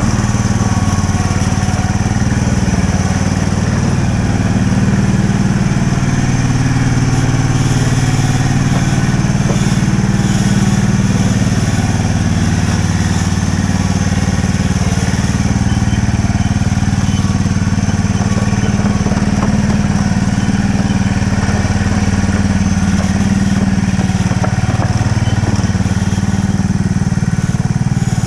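Engine of a ride-on backyard-railway locomotive running steadily as it travels along the track.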